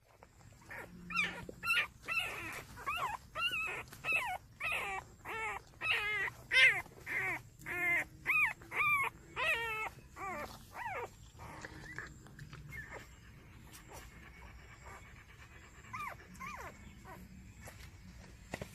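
Newborn puppies, five days old, whimpering and squeaking in a string of short high cries that rise and fall, about two a second. After about ten seconds the cries thin out to a few fainter ones.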